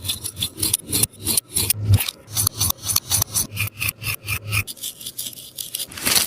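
A sticky taba squishy being rubbed in quick, repeated rasping strokes, several a second.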